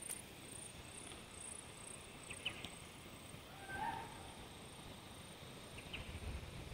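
Faint outdoor bush ambience with a few short, distant animal calls, one about two and a half seconds in and another, lower one about four seconds in.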